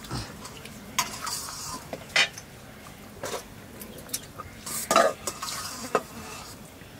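Metal spoons scraping and clinking against steel plates and a large metal cooking pot as food is eaten and served, in scattered short strokes about once a second.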